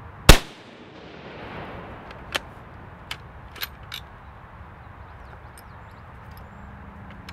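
A single shot from a Type 99 Arisaka sniper rifle in 7.7mm Japanese, a sharp report about a third of a second in, with its echo rolling back for about a second and a half. It is followed by four metallic clicks as the bolt is worked to chamber the next round.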